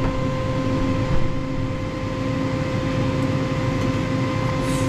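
Air fryer's fan running with a steady hum.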